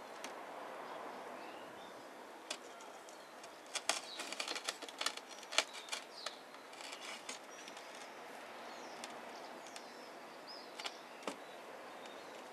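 Crackling and rustling of a ficus's fine roots being handled and pressed around a small figurine. The crackles come as a dense run of sharp clicks about four to seven seconds in, with a few single clicks before and after.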